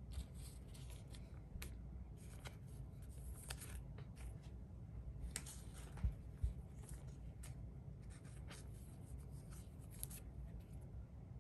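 Trading cards being handled: faint, scattered rustles and light scrapes of card stock, with a couple of soft thumps about six seconds in.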